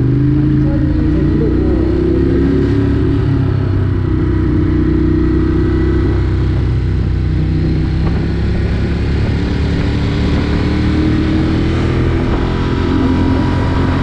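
A road vehicle's engine runs at a steady cruise with a continuous low rumble. Its pitch drifts gently and rises a little near the end.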